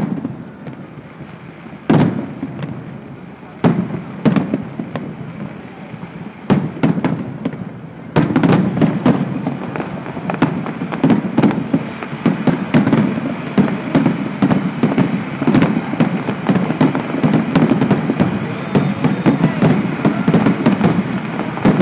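Aerial firework shells bursting: separate booms a second or two apart, then from about eight seconds in a dense barrage of many rapid bangs and crackles.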